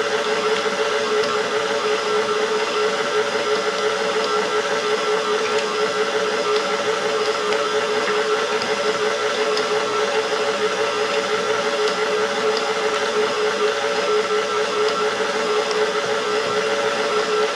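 Electric stand mixer running steadily with a constant motor whine.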